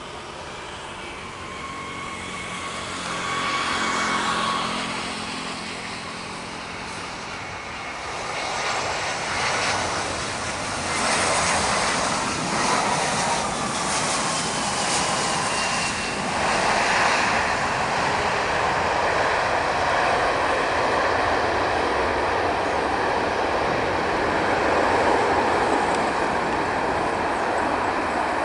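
Twin-engine jet airliner on final approach, its engines giving a whine that glides in pitch, then an Airbus A320's jet engines at takeoff thrust during its takeoff roll: a loud, steady rush of jet noise that builds from about eight seconds in.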